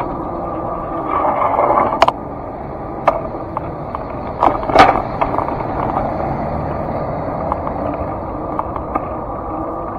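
Wheels rolling along a concrete sidewalk: a steady rumble with a few sharp clacks, the loudest about five seconds in. Street traffic passes alongside.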